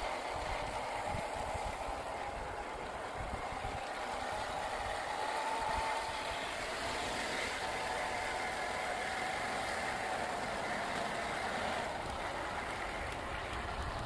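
Electric drive motor and gearbox of a 1/10-scale RC crawler whining steadily as it drives, the pitch drifting up and down, with a low uneven rumble underneath.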